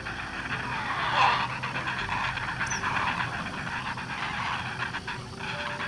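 Young great blue herons at the nest giving repeated harsh, rasping calls, several in a row at irregular spacing.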